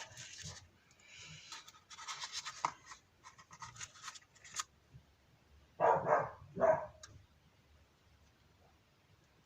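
Scraping and rubbing in short bursts as Litol grease is worked into a brake caliper's guide-pin bores, then two louder handling noises about six and seven seconds in.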